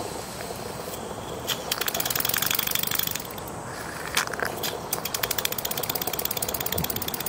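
Chiltern model horizontal mill engine running on steam, ticking and puffing in rapid, even beats. The beats slow for a second or two about three seconds in, then pick up again.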